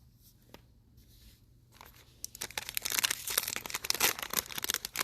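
A trading-card pack wrapper being torn open and crinkled in the hands. After a quiet start with a few faint clicks, a dense, rapid crackle starts about two seconds in and runs on.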